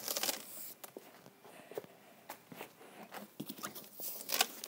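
Flaps of a large cardboard box being folded open: scattered light knocks and scrapes of cardboard, with a louder burst of cardboard rustle about four seconds in.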